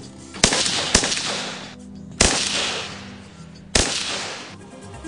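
AN-94 assault rifle firing four shots, the first two half a second apart, then one about every second and a half. Each crack rings out for about a second. Background music plays underneath.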